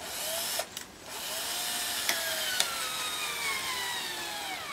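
Power drill driving a 10 cm wood screw into a timber frame. A short burst comes first, then about a second in a longer run whose motor whine falls steadily in pitch until it stops near the end. Two sharp clicks come partway through.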